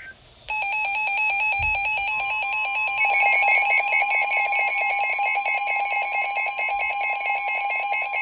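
Emergency Alert System attention tone, a loud steady electronic alarm that starts about half a second in with a fast pulsing texture; a second steady tone joins about two seconds in. It announces a blizzard warning.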